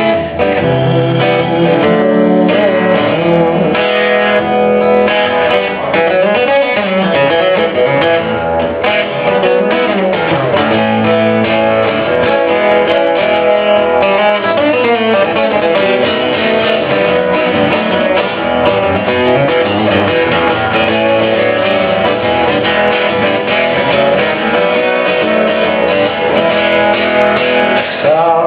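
Live guitar-led instrumental break in a song, with no singing: a plucked guitar plays steadily throughout.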